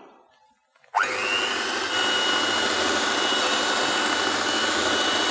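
Electric hand mixer switched on about a second in, its motor whining up to speed and then running steadily as the beaters whip cream.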